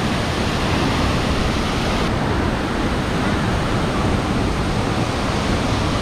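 Steady rush of a tall waterfall plunging into its pool, an even roar of falling water.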